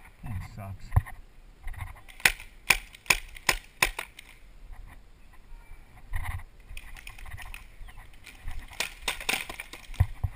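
Paintball fire: irregular sharp pops and cracks of markers shooting and balls striking bunkers, several in quick succession in the first few seconds and another flurry near the end.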